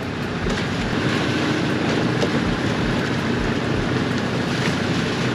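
Boat engine running at a steady idle, a low even hum, with wind buffeting the microphone.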